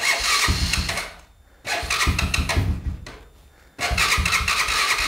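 Honda 4-Trax 300's electric starter cranking its cold single-cylinder engine in three bursts of a second or so each, with short pauses between, without it catching. The engine has no working choke and has sat unused for about two months, so it needs more pumps of the primer before it will fire.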